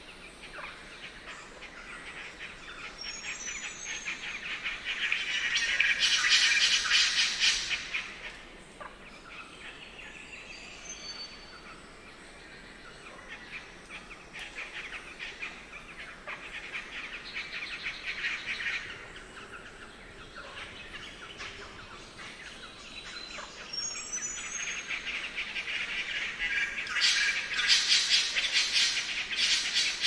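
Spangled drongos giving their harsh, mechanical jangling and chattering song in bouts: loudest about six seconds in and again near the end, with a quieter bout in between. A quick run of short high clear notes comes just before each loud bout.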